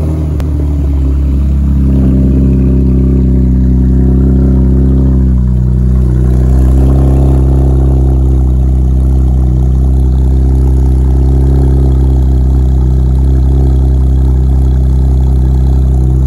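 Fifth-generation Chevrolet Camaro with its muffler deleted, idling steadily just after starting, heard close to the open exhaust pipes. The exhaust note is loud and deep.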